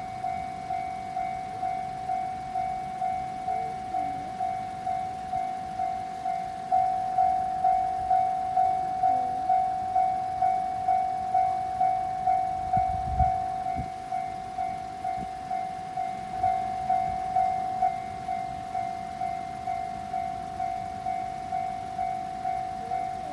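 Japanese railway level crossing warning bell ringing, an electronic ding repeating steadily about twice a second. It grows louder for about eleven seconds in the middle, then drops back.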